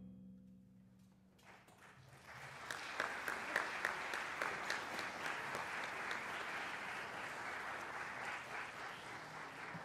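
The last chord of a concert wind band dies away, and about a second and a half in an audience breaks into steady applause.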